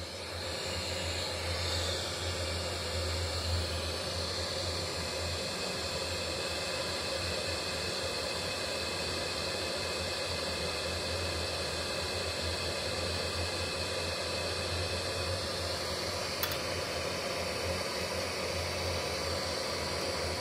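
Steady FM radio static hiss from a Sihuadon R-108 receiver tuned to 71.55 MHz, where no station broadcasts. A single button click comes late on.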